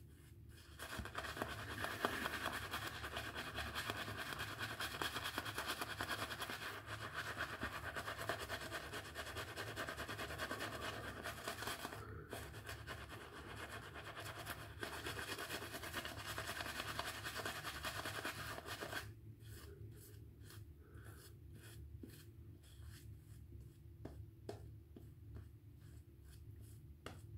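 Shaving brush working shaving-soap lather: a steady, wet, bristly rubbing with a short break about twelve seconds in. It stops about nineteen seconds in, leaving faint scattered small clicks.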